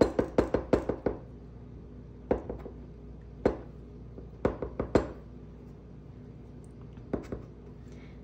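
Knife tip tapping against the countertop as it cuts letters into rolled-out dough: a quick run of taps in the first second, then scattered single taps.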